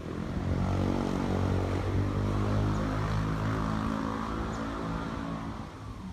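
An engine passing by: a low hum of several steady tones that swells within the first second and fades toward the end.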